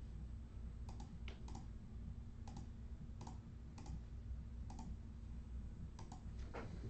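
About ten light clicks at uneven intervals over a low, steady hum.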